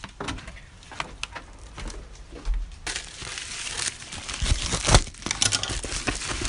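Packaging being handled and torn open: scattered crinkles and clicks at first, then from about three seconds in a dense, louder stretch of crumpling and tearing.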